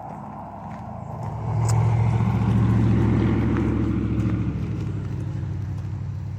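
A road vehicle drives past, its low engine rumble swelling about a second and a half in and then slowly fading away.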